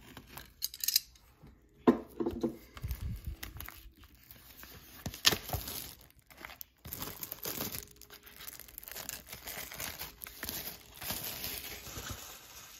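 Box of trading cards being torn open by hand: packaging tearing and crinkling in irregular bursts, with a couple of sharp rips.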